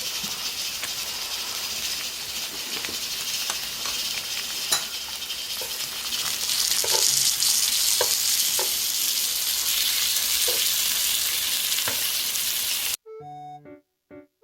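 Frozen pork belly sizzling and spattering on a hot pan, a steady hiss with a few sharp pops, louder about six seconds in. It cuts off abruptly near the end, and light piano music follows.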